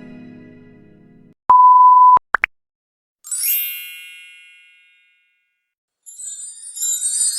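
A string of stock sound effects. A harp run rings out and fades. Then comes a loud, steady, single-tone censor bleep of under a second, two very quick rising chirps, and a bright ding that rings and dies away. A high glittery jingle starts near the end.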